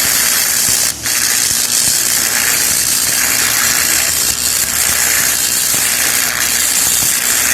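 Electric arc welding on steel: a steady, loud crackling hiss from the arc, with a brief break about a second in.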